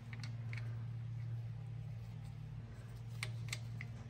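A few light clicks and taps from hand-tool work on a brake caliper, two in the first second and three near the end, over a steady low hum.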